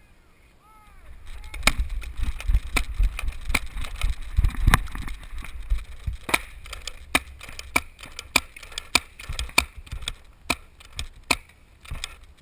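Paintball markers firing: sharp pops at an irregular pace, a few a second, starting about a second in, over low rumbling wind and handling noise.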